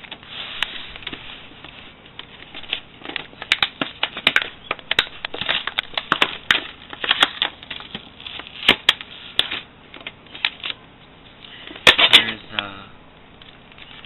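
Plastic blister packaging and its cardboard backing card being handled and pulled apart: irregular crackling, clicking and crinkling, with the loudest burst of crackles near the end.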